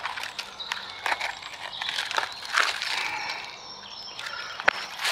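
Scattered rustling and light crackling as a person shifts while sitting on a tree stump among forest-floor litter, with a few faint high bird chirps behind it.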